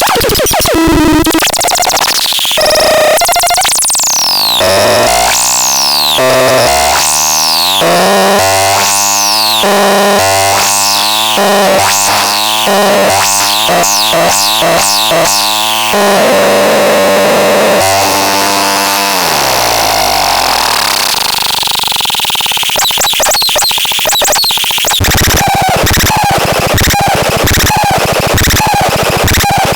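Harsh electronic synthesizer noise: high falling pitch sweeps repeating about once a second over stepped, buzzy low tones, getting faster before a long downward glide. Near the end it turns into a fast stuttering pulse.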